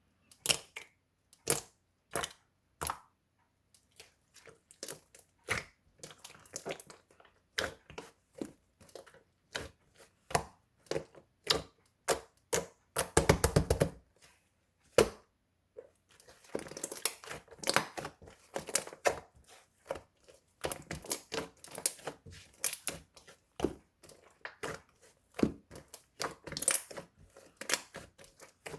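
Clear slime being squeezed and pressed by hand, making sharp sticky clicks and pops, with a dense crackling run about halfway through.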